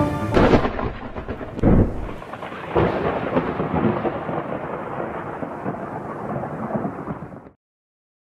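Thunderstorm sound effect: three thunderclaps about a second apart, then a long rolling rumble with rain, cutting off suddenly near the end.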